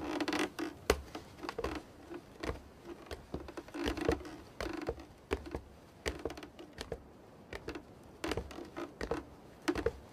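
Footsteps of several people walking on a wooden floor: an irregular patter of steps and knocks.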